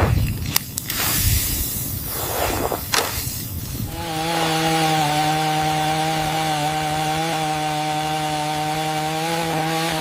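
A chainsaw held at a steady high pitch, starting about four seconds in, after a few knocks and scraping noises.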